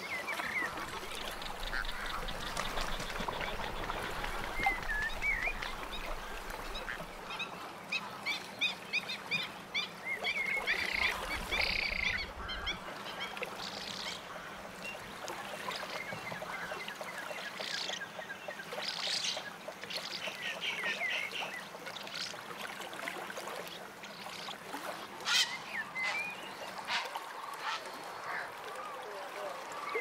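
A dense chorus of many ducks and geese calling at once, short repeated calls overlapping throughout, with a few louder single calls standing out.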